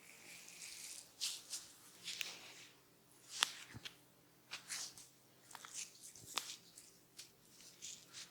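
Oil massage on skin: hands rubbing and kneading, heard as irregular soft swishes and squishy strokes, with a few sharp clicks, the loudest about three and a half and six and a half seconds in.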